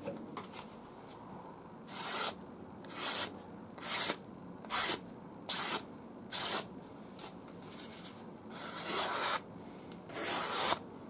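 A freshly sharpened scandi grind knife slicing through a sheet of paper in repeated cuts, each a short papery hiss, about one a second. Two longer slicing hisses come near the end. It is a paper test of the mirror-polished edge.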